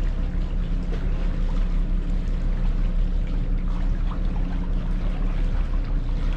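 A sailing catamaran's diesel engine running steadily at low speed while motoring in, with a continuous rush of water along the hulls.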